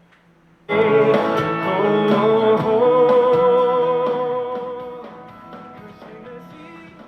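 A song with singing and guitar played through a Sony SRS-XB31 Bluetooth speaker. It is faint at first, jumps suddenly loud just under a second in, then fades down over the next couple of seconds.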